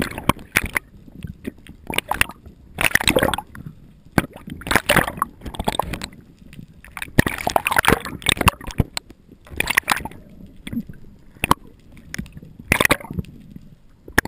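Water sloshing and gurgling around a GoPro HD Hero2 in its waterproof housing just below the sea surface, muffled through the housing. It comes in surges about every one to two seconds, with sharp little clicks in between.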